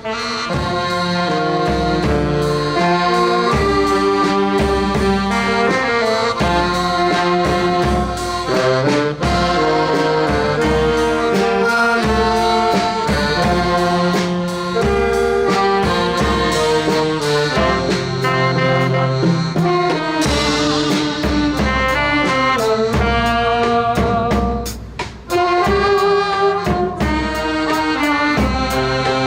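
A band of saxophones and brass playing a slow popular song, sustained melody notes over a steady bass and drum beat. The music dips briefly about 25 seconds in, then picks up again.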